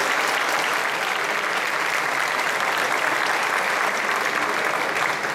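Audience applauding steadily, a dense sustained clapping that thins out near the end.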